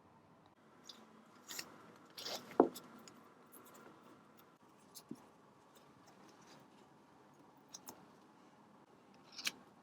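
Scattered snips, clicks and rustles of hand work on a car's wiring loom as the old tape is cut and stripped off the wires. The loudest cluster comes about two and a half seconds in, with another near the end.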